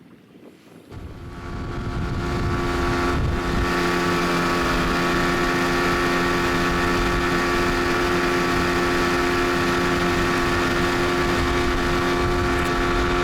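Boat outboard motor starting about a second in, picking up and then running steadily at a constant pitch, cutting off abruptly at the end.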